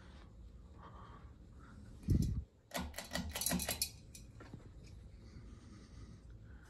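Emerson Legend ceiling fan running with a steady low hum. About two seconds in there is a single thump, then about a second of rapid clicking and rattling.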